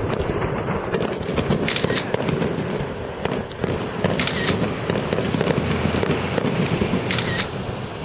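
Fireworks display going off in a dense barrage: continuous rumbling booms with many sharp cracks and crackles overlapping one another.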